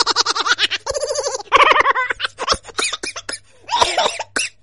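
A person laughing loudly in quick repeated pulses of voice.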